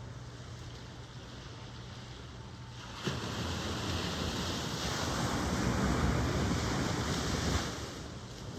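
Ocean surf: a wave breaks suddenly about three seconds in, and its wash swells for several seconds before dying back near the end, over a steady background rush of surf.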